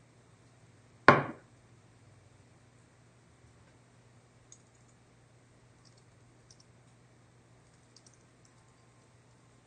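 A single sharp knock about a second in that dies away quickly, then a few faint clicks over a low steady room hum.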